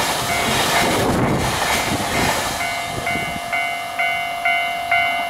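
Container wagons of a freight train rumble past and fade as the last cars go by. Over the last half, a Japanese level-crossing warning bell rings out clearly, about two electronic strikes a second.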